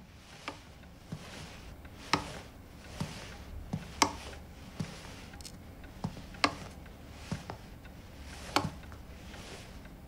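Slow footsteps and cane taps on a hard floor, a man walking with a walking stick: a dozen or so soft, unevenly spaced knocks, the firmest about two, four, six and a half and eight and a half seconds in.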